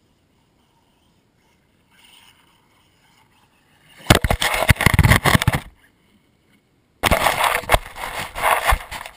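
Losi Mini 8ight radio-controlled buggy driving on a grass lawn close to the microphone: two loud bursts of rushing drive noise, the first about four seconds in lasting under two seconds, the second starting about seven seconds in.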